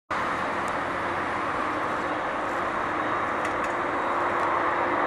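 Turkish Airlines Airbus A330-300 on final approach, its two General Electric CF6-80E1 turbofans giving a steady rushing jet noise with a faint humming tone, growing slowly louder as the airliner nears.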